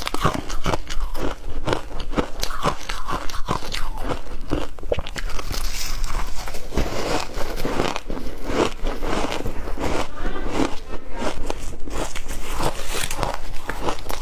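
A person biting and chewing crunchy shaved ice close to the microphone: a dense, continuous run of crisp crunches and crackles.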